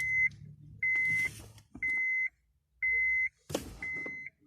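Electronic beeper sounding a steady series of identical high beeps, each about half a second long, once a second, during immobilizer key programming. A click sounds about three and a half seconds in.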